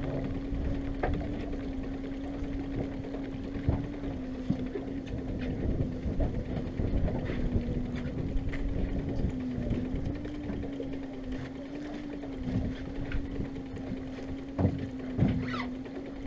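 Outboard motor running steadily at low speed, a constant hum that wavers slightly in pitch, over a low rumble of wind and water. A few sharp knocks, the loudest two near the end.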